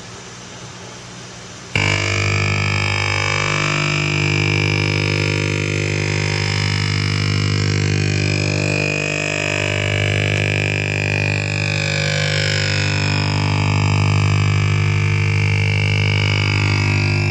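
Shortwave radio signal received on a crystal radio set: faint static hiss, then about two seconds in a loud droning tone cuts in abruptly, a steady low hum with a stack of overtones and slowly wavering higher tones over it. The uploader takes it for a HAARP transmission.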